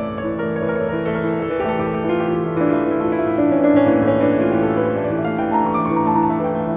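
Background music led by piano, with held notes changing at a slow pace.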